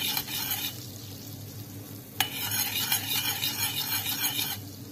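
Butter melting in a small pot over low heat, sizzling and crackling while it is stirred. A sharp clink comes about two seconds in, and the sizzle is louder after it.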